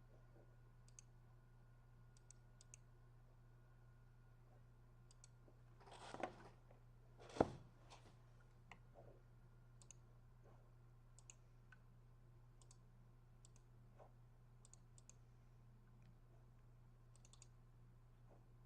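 Faint computer mouse clicks every second or so over a low steady hum, with a brief rustle about six seconds in and a single sharp knock just after it.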